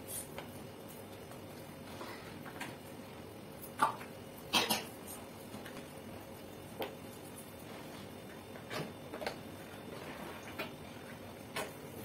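A soaked blanket being rubbed by hand in a plastic bucket of soapy water. The sound is quiet, with scattered knocks and clicks against the bucket, the loudest two about four seconds in and a few smaller ones later.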